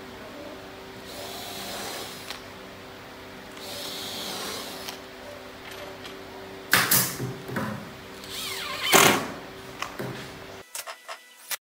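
Cordless drill driving screws into the plywood top of a speaker cabinet in short bursts, with two louder bursts about seven and nine seconds in.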